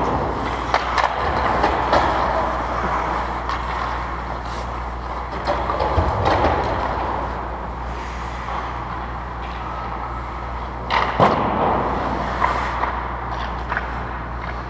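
Ice hockey rink sound: skates scraping the ice and sticks and puck clacking in play, over a steady low hum. A sharp clack about eleven seconds in is the loudest.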